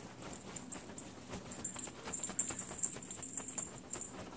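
A cat batting at a feather wand toy held above it: faint, irregular light taps and rustles.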